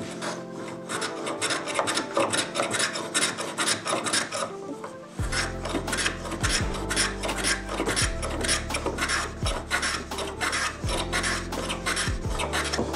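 Small hand plane shaving hard maple in quick, repeated short strokes, a rapid scraping rasp several times a second. Background music plays along with it.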